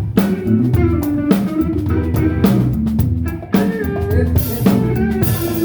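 Drum kit and bass guitar playing a groove together, the kick drum locked with the bass line, for a sound check of the kick-and-bass blend. A cymbal washes over the groove near the end, and the playing stops just after.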